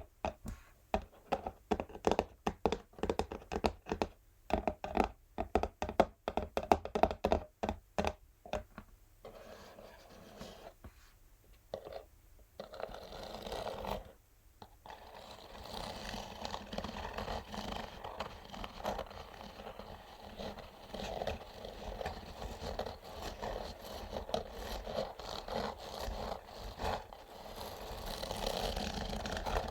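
Natural fingernails tapping quickly on an empty textured cardboard box, then, after a quieter pause about nine seconds in, scratching across its surface continuously for the rest of the time.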